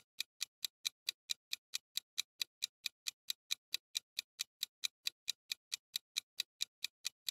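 Clock-tick sound effect of a quiz countdown timer: short, sharp ticks at a steady, fast pace of about five a second.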